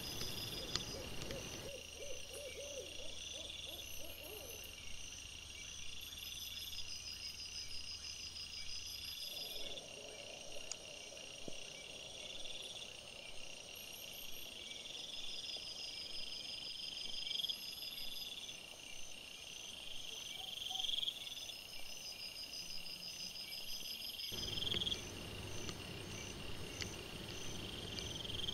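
Crickets trilling in short repeated pulses about every two seconds, with an owl giving a wavering hoot a few seconds in and a fainter call around ten seconds in.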